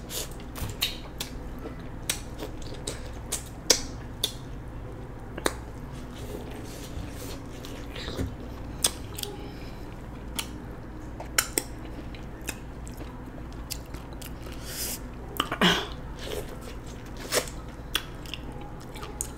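A person biting and chewing kernels off a corn cob close to the microphone: irregular sharp crunches and wet clicks, bunched more densely near the end, over a low steady hum.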